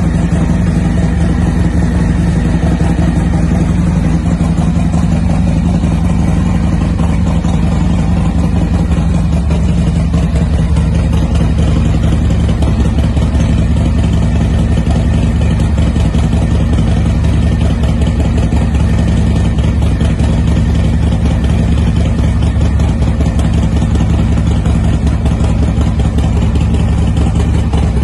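Harley-Davidson Softail Breakout's Milwaukee-Eight V-twin engine idling steadily.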